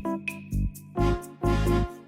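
Background music: a bouncy keyboard and bass tune with a steady beat.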